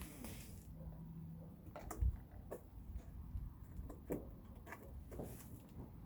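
Handling of a motor-oil bottle and measuring container: scattered light clicks and knocks, with one dull thump about two seconds in.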